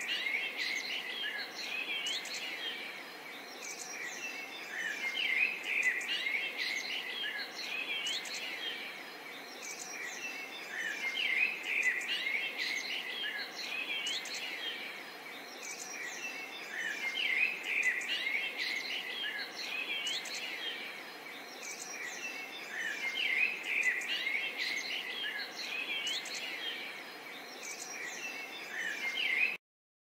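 A chorus of birds chirping and twittering over a steady background hiss, swelling and easing off about every six seconds. It cuts off suddenly just before the end.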